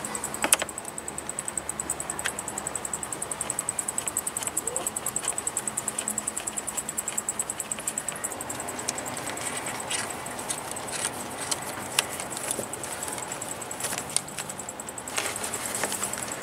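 Light metallic clicks and clinks as a vacuum pump is handled and fitted onto the engine of a Mercedes Sprinter Classic, with a sharp click about half a second in and a few more scattered through.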